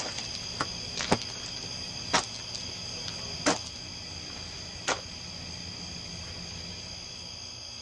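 Crickets chirping steadily, with about five sharp clicks or snaps at irregular intervals in the first few seconds.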